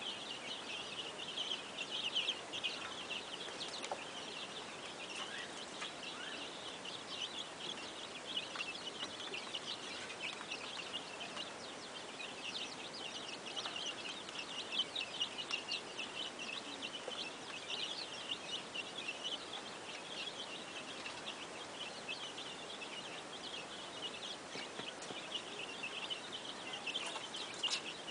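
A crowded flock of chickens calling together in a poultry house: a dense, continuous chorus of high chirping calls.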